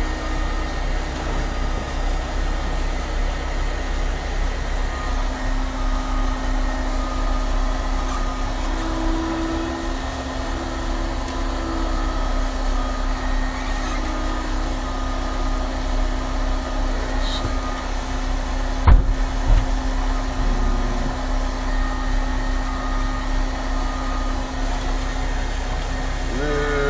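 Cat tracked skid steer's diesel engine running steadily as the machine is maneuvered, with one sharp knock about two-thirds of the way through.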